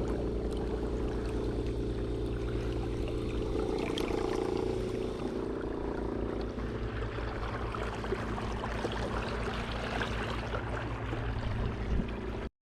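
A small boat motor running steadily, with water rushing and splashing along the hull of a kayak under way.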